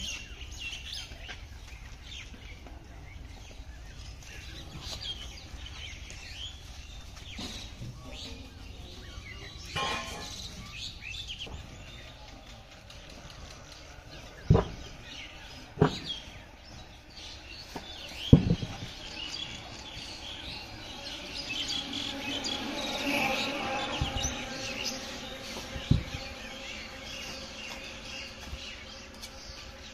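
Birds chirping faintly in the background, with four sharp knocks in the second half, the loudest a little past the middle.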